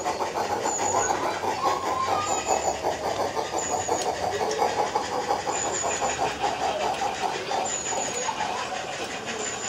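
16mm-scale live-steam garden railway locomotive chuffing in a fast, even beat as it hauls its coaches. A child cries faintly in the background.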